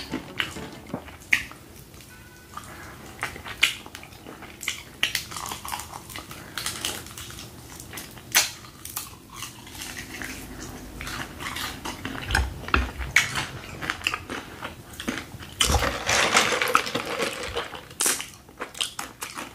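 Close-miked eating of crispy fried chicken: crunching bites of the crust and chewing, with many sharp crackles and mouth clicks, and a denser stretch of noise near the end.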